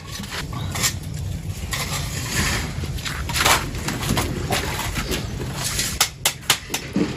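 Wood and charcoal being handled and knocked about at an open wood fire: scraping, with several sharp knocks near the end, over a low steady rumble.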